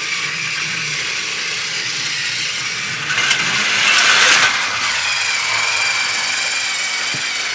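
Battery-powered TrackMaster toy train motors whirring steadily as the engines run along plastic track, growing louder for a second or so around the middle as they come close.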